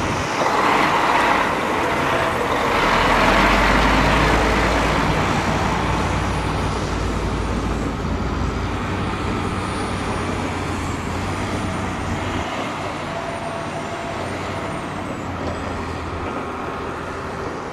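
MAN dump truck's diesel engine running as the truck drives past on a dirt haul road and pulls away, loudest a few seconds in with a low rumble, then slowly fading.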